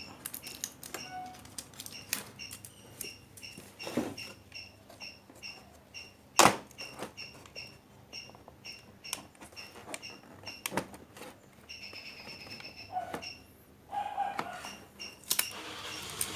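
Scattered clicks and knocks of tools and plastic parts as an LED TV's display panel is pried loose and lifted out, with one loud knock about six and a half seconds in.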